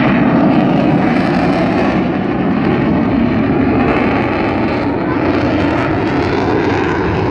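Loud, steady jet engine noise from a Mirage fighter jet flying a display.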